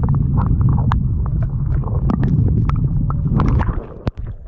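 Muffled underwater rumble with bubbling clicks and pops, the sound of water against an action camera held below the surface. It drops off suddenly about four seconds in, as the camera comes up out of the water.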